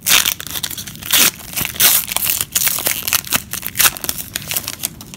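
Plastic wrapper of a football trading-card pack being torn open and crinkled by hand, a dense run of irregular crackles.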